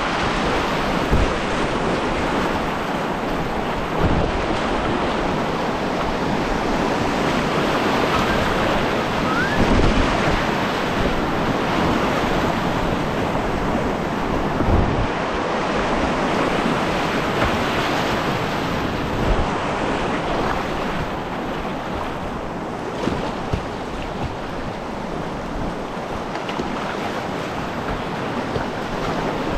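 Whitewater rushing and churning around a kayak running a creek rapid, a steady roar of moving water with occasional low thumps.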